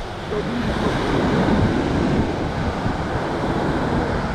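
Ocean surf breaking and washing up the beach, swelling about a second in, with wind buffeting the microphone.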